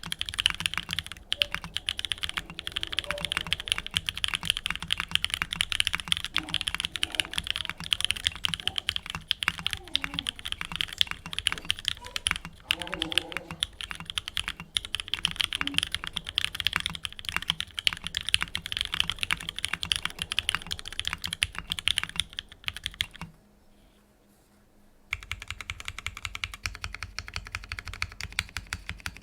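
Steady fast typing on a Keycult No.1 rev.2 tenkeyless mechanical keyboard with a stainless steel case, JWK black linear switches on an aluminium plate and PBT keycaps: a dense run of key clacks. The typing stops for about two seconds roughly three-quarters of the way through, then carries on.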